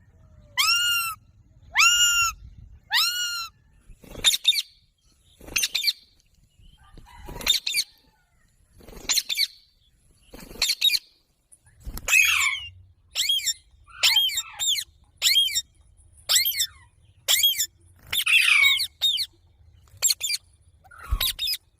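Rose-ringed (Indian ringneck) parakeet calling in a long series of harsh squawks, about one a second. The first few are drawn-out arched calls; the rest are shorter, sharper screeches.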